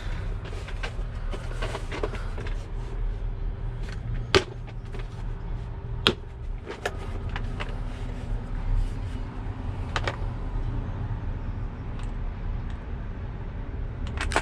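Hand tools and sockets being rummaged through: a dozen or so scattered metal clinks and knocks, over a steady low hum.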